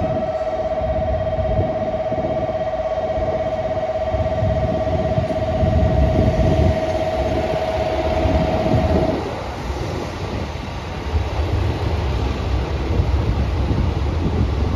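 Diesel engines of a KiYa 141 inspection train idling at the platform, a steady low rumble. A single steady electronic tone sounds over it and cuts off about nine seconds in. Near the end the rumble swells as a yellow diesel railcar pulls in on the adjacent track.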